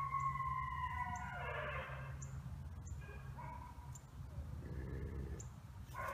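Wolves howling in chorus: several long, overlapping drawn-out notes that fade out about two seconds in. Fainter calls follow, and the chorus rises again right at the end.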